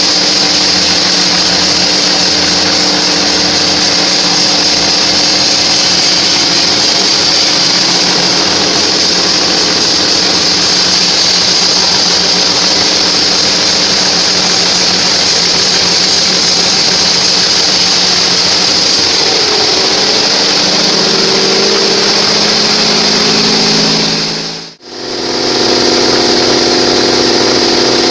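Homemade band sawmill running steadily while it rips a trembesi log: a motor drone under a loud high-pitched noise from the blade. The sound drops out briefly near the end and then picks up again.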